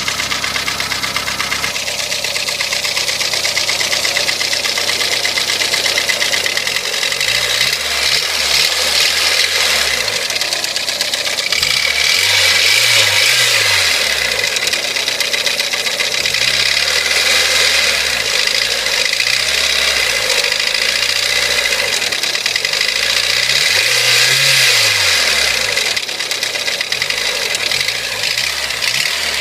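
Honda D16A 1.6-litre four-cylinder engine running with a loud, rapid machine-gun-like knocking, the engine speed rising and falling a little. The owner places the knock in the cylinder head; it appeared after an engine rebuild, and the valve clearances were checked and found normal.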